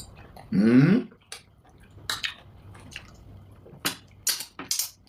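Wet mouth noises of eating swallow and soup: a string of short smacks and squelches, with a brief voiced sound, like an 'mmm' or exclamation, about half a second in.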